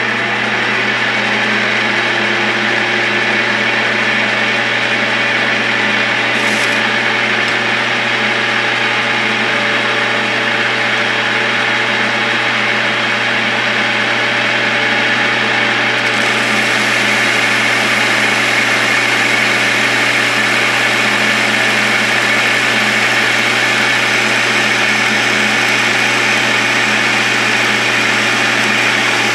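South Bend 1307 metal lathe running at about 800 RPM while a carbide straight turning tool takes a 40-thousandths cut on a steel rifle barrel at a very slow feed: steady motor and drive hum under the cutting noise. The sound turns brighter and hissier about halfway through.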